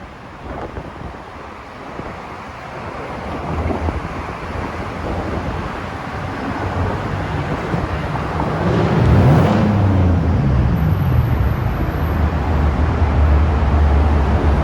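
Car travelling at freeway speed: tyre, road and wind noise that builds over the first several seconds. About nine seconds in a rushing swell comes, and after it a steady low drone.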